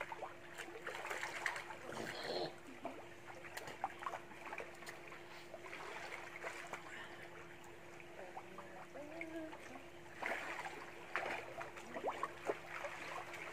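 Swimming-pool water lapping and trickling with scattered small splashes as people wade in it, over a faint steady hum.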